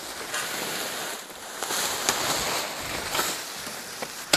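Plastic and tarp sheeting rustling and crackling as it is dragged out of dry soil, with shovel scrapes in the dirt and a few short sharp crackles.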